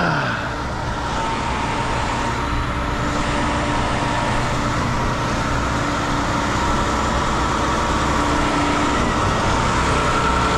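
Putzmeister 56Z concrete boom pump truck's engine running steadily, a constant hum with several held tones over a low rumble. Just at the start, the small drone's propellers wind down in a short falling whine.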